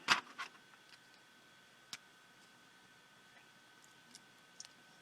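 Small sharp clicks and taps of plastic parts and tools as the casing of a tiny pico projector is handled and pried at during disassembly: one louder click at the start, a few lighter ones, then scattered faint ticks.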